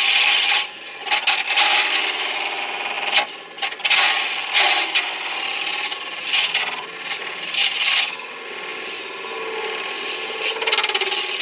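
Lathe tool cutting a spinning acrylic resin pen blank on a midi lathe: a rough scraping hiss that swells and fades with each pass of the tool.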